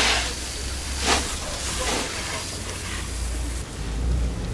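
Fire hose spraying water onto a burnt-out minibus: hissing in short bursts about a second apart, over a steady low rumble.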